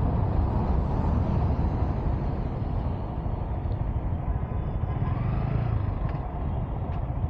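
Vehicle driving on a road: steady engine and road noise, swelling briefly about five seconds in.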